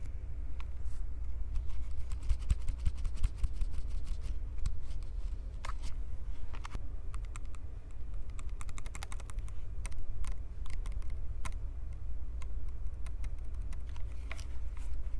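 Hands gripping and squeezing a Tascam handheld recorder right on its microphones: a steady low handling rumble under many crisp, irregular clicks and crackles, thickest about two to four seconds in and again around nine seconds.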